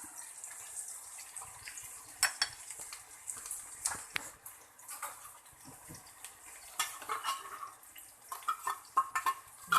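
A utensil scraping and clinking against a frying pan while tuna sizzles in it with sautéed garlic and onion, with a few sharper knocks and a busier run of scraping near the end.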